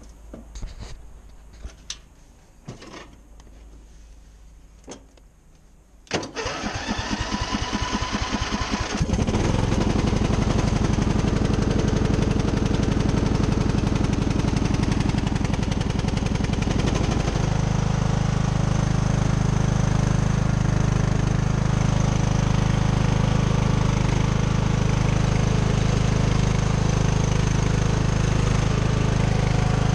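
A few clicks, then a Craftsman lawn tractor's small engine is cranked by its electric starter for about three seconds, catches and runs. About halfway through its running note shifts and then holds steady; this is its first start after sitting all winter.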